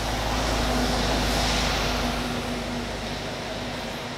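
A bus drives past on a wet road. Its engine rumbles and hums and its tyres hiss; the sound swells about a second in and then fades away.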